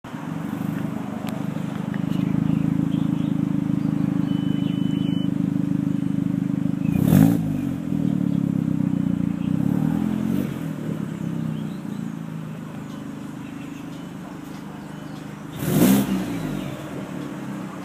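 Volkswagen Jetta running with a steady drone and a weird noise. Two brief louder swells, each rising and falling in pitch, come about 7 and 16 seconds in.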